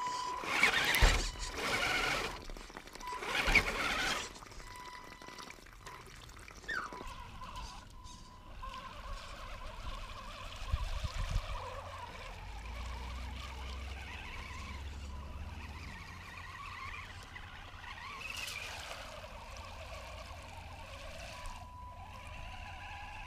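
Electric whine of a WLtoys 1/12 military RC truck's 370 motor and all-plastic gearbox, a thin steady tone that drops out and returns near the end. Two loud wet, churning bursts in the first four seconds as the truck's tyres work through mud, then a fainter steady outdoor noise with a low rumble.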